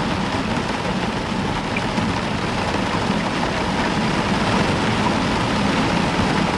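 Heavy rain falling steadily on a roof, a dense, even hiss with no single drops or thunderclaps standing out.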